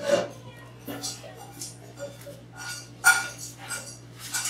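Dishes and cutlery clinking at a kitchen sink while they are washed, with short scattered yelps and whimpers from a dog; the sharpest sound comes about three seconds in.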